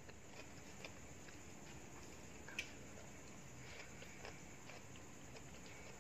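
Faint eating sounds: quiet chewing and small clicks of a metal spoon scraping and tapping a plate, with one sharper click about two and a half seconds in.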